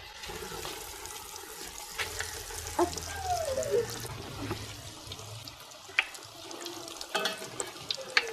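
Breaded chicken cutlets deep-frying in hot oil: a steady sizzle with scattered sharp crackles and pops.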